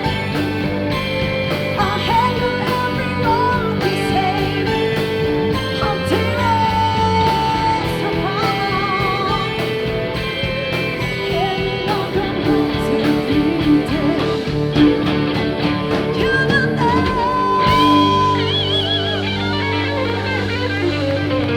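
Music: a rock song with a sustained lead melody over steady bass and drums, its long notes wavering in vibrato.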